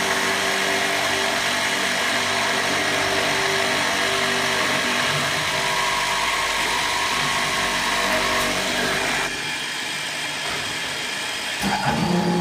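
Motor of an MXZ260X door-lock drilling machine running steadily with a whine and hiss. About nine seconds in it suddenly drops to a quieter sound, and a different steady hum starts near the end.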